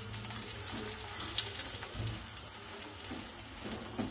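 Oil sizzling and crackling under an aloo paratha frying on a hot tawa, with a sharper pop about a second and a half in, over a steady low hum.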